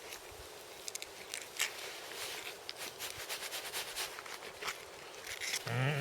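Irregular soft scrapes, rustles and clicks of a hunting knife working on a deer carcass. A short low voice sound comes near the end.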